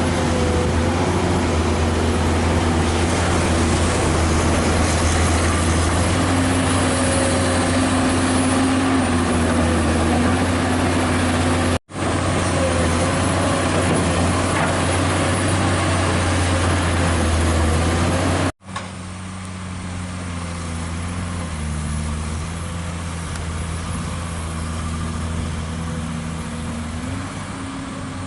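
Heavy diesel engines running with a steady low hum, their pitch shifting slowly up and down. The sound cuts out abruptly twice.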